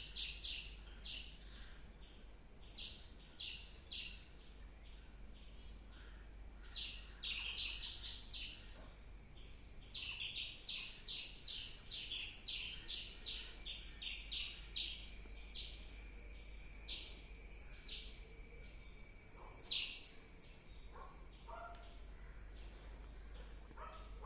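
Squirrel chirping: several runs of short, sharp calls, often about three a second, growing weaker near the end.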